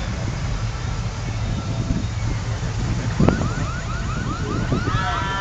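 Engines of slowly cruising cars running steadily as they pass. About three seconds in, a rapid series of rising electronic siren chirps starts, about five a second, and near the end a steady chord of multi-tone horn notes sounds over it.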